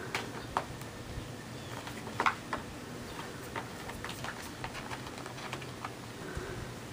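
Kittens' paws and claws tapping and scratching on a plastic laundry basket: scattered light clicks and knocks, the loudest a little over two seconds in.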